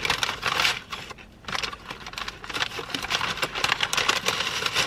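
Paper food wrapping and bag crinkling and rustling as they are handled, in two stretches with a short lull about a second in.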